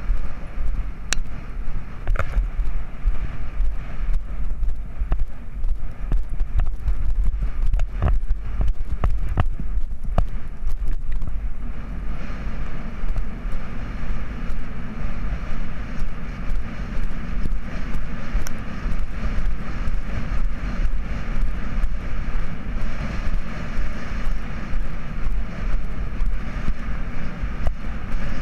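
Wind buffeting a head-mounted camera's microphone as a horse gallops, a heavy low rumble with the pulse of hoofbeats under it. A few sharp clicks in the first ten seconds.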